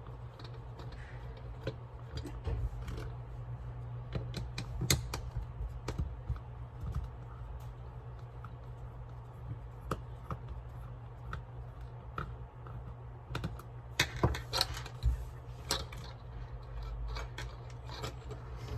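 Scattered small plastic clicks and taps from a BlueParrott 450-XT headset's housing being handled and opened to get at its battery, with a denser flurry of clicks about 14 seconds in, over a steady low hum.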